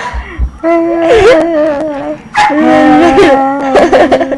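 A person making long, wavering howl-like vocal noises, two drawn-out calls in a row.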